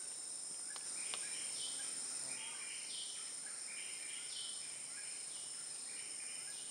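Tropical forest ambience: a steady high-pitched insect chorus, with birds calling in short notes, some sliding downward, repeating about once a second.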